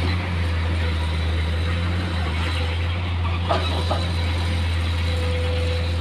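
Heavy diesel engines running steadily, from a Komatsu PC210 excavator digging rock and a dump truck beside it, with two short knocks about three and a half seconds in.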